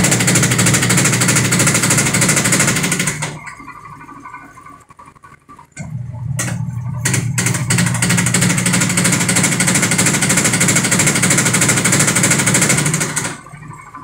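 Sharp top-load automatic washing machine spinning with a loud clattering, its loose, wobbly tub banging as it turns, the sign of a defective tub assembly. The spin cuts out about three seconds in, picks up again about three seconds later and cuts out again near the end, pulsing on and off while it is still building up speed.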